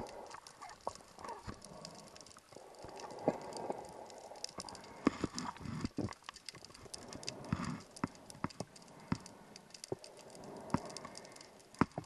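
Underwater sound of a scuba diver's breathing: hissing bursts of regulator exhaust bubbles a second or two long, coming and going, with many scattered sharp clicks and crackles between them.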